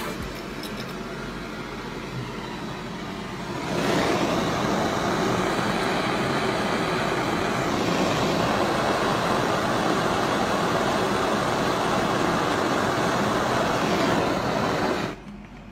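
Gas blowtorch flame hissing steadily; it gets louder about four seconds in and cuts off near the end.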